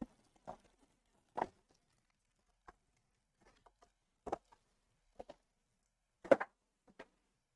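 Scattered soft taps, clicks and rustles of a cardboard trading-card box and card packs being handled: about a dozen short separate sounds with quiet between them, the loudest late on.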